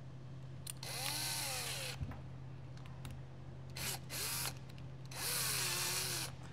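Cordless drill/driver driving the valve-cover screws into the housing. It runs for about a second, gives two short blips, then runs for about another second. Its motor whine rises and falls in pitch as it speeds up and slows.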